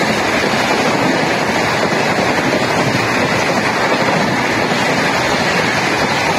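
Indian Railways express passenger coaches rushing past close by at speed: a loud, steady rushing of wheels on rail and displaced air, with wind buffeting the microphone.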